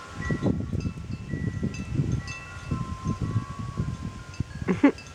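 Wind chimes ringing with several clear sustained notes, over irregular low rumbling bumps of wind or handling on the microphone. A brief loud vocal-like sound cuts in near the end.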